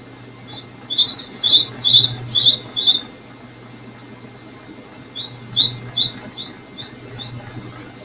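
Small songbird calling: a quick run of about ten short, high chirps starting about half a second in, then a sparser run of about seven more about five seconds in, over a faint steady low hum.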